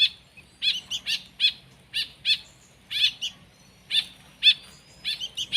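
Songbird nestling giving short, repeated begging chirps, about two a second: a very young chick calling to be fed.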